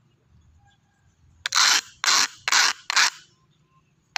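Four short scraping strokes of a metal coffee can's cut end rubbed against asphalt, about two and a half a second, starting a little over a second in: the edge is being smoothed after the can's end has been ground off on the road.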